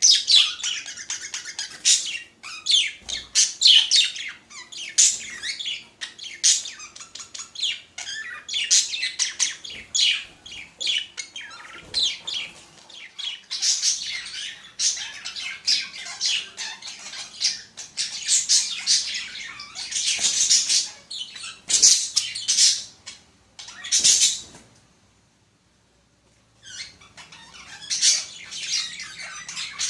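Pet budgerigars chattering: a busy, continuous stream of high chirps, warbles and squawks that breaks off for about two seconds near the end, then starts again.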